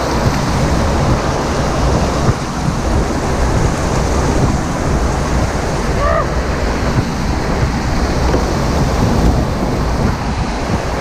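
Loud, steady rush of a waterfall, with wind buffeting the microphone.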